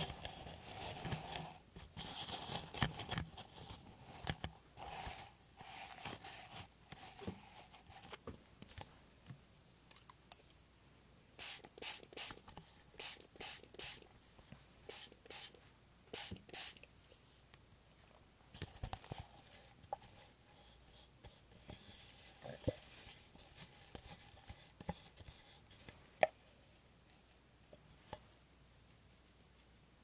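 Tissue paper rustling and crinkling, then a quick run of about ten short, sharp hisses from a small plastic pump spray bottle filled with water, followed by scattered soft taps and crinkles.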